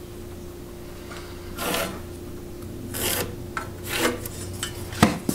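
A pencil scratching layout lines on a rough timber beam along a steel framing square: three short strokes, then a sharp tap near the end.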